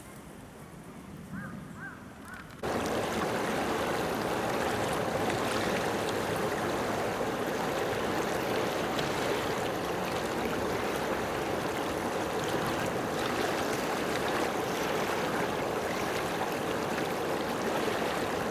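A steady rush of moving water that starts abruptly about three seconds in and runs on evenly. Before it there is only quiet outdoor ambience with a few faint high chirps.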